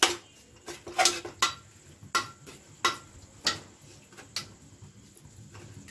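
A metal spoon knocking and scraping against the inside of an aluminium pressure cooker as cooked mutton is broken into small pieces. About seven sharp, irregular clinks come in the first four and a half seconds.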